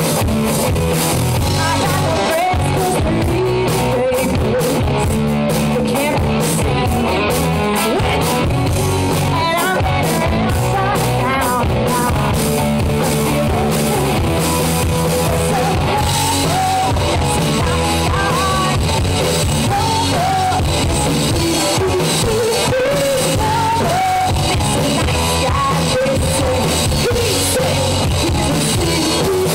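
Live rock band playing a song: guitar and drum kit with a lead singer, loud and dense.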